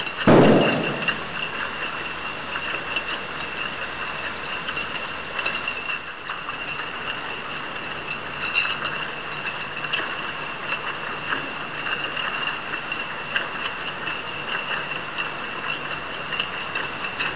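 Bottling-line machinery running steadily, with a constant high whine and frequent small ticks and clinks. Just after the start comes a sudden loud whoosh that fades within about a second, and a hiss carries on until about six seconds in.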